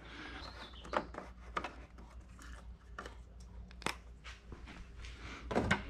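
Scattered light clicks and rustling of hard plastic parts being handled as a side mirror is worked loose from a Can-Am Spyder RT's fairing, with a louder knock near the end.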